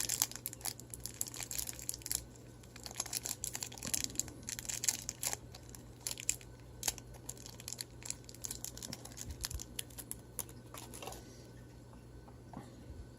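Packaging being handled: crinkling and rustling with small clicks, dying down about eleven seconds in.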